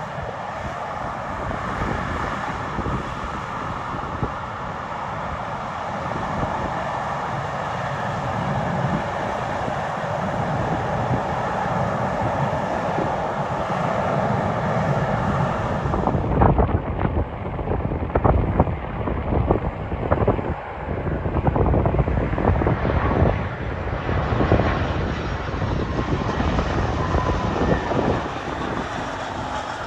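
Jet airliner's engines: a steady whine that grows louder, turning about halfway through into a heavier, uneven low rumble.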